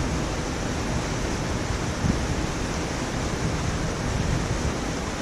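Steady outdoor rushing noise with a rough low rumble and no distinct events.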